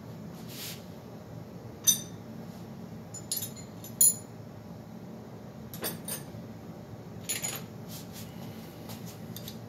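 Metal hand tools clinking as wrenches or sockets are picked out and handled: a few separate sharp clinks spread over several seconds, the loudest about four seconds in, over a faint steady low hum.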